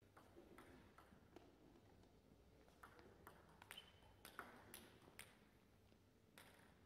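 Faint, scattered light clicks of a table tennis ball bouncing between points, a few quick ones at the start and a cluster in the middle. A brief high squeak sounds near the middle.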